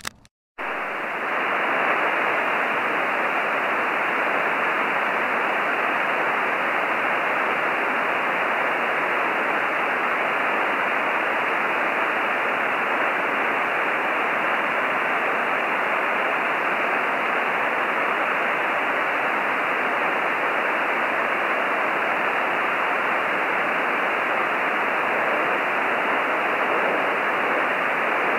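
Steady hiss from an ICOM 706 MkIIG radio receiver tuned to HuskySat-1's downlink, cut off above about 3 kHz by the receiver's filter, with no distinct signal tone standing out. It starts after a brief dropout about half a second in.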